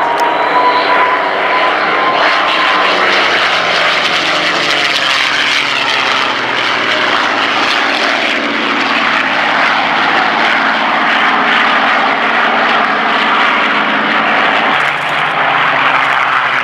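Several P-51 Mustangs' Merlin V12 piston engines running as the fighters fly past overhead, the engine note falling slowly in pitch midway and a new, deeper note coming in near the end.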